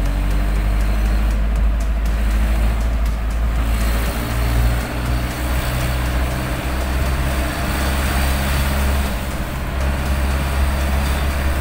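Motor vehicle engine running steadily while driving, with road and wind noise. The hiss grows louder from about four seconds in.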